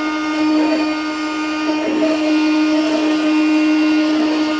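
X-Carve Pro CNC router spindle running with a steady, even whine as its bit cuts an opening into a black plastic pickguard sheet.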